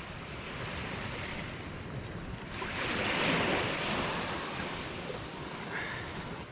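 Small waves washing onto the beach, a steady wash that swells louder about halfway through and then fades.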